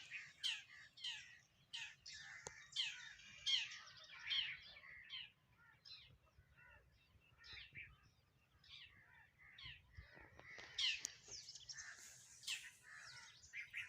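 A group of house sparrows chirping: many short, quick chirps overlapping. The chirping is busy at first, thins out in the middle, then picks up again near the end.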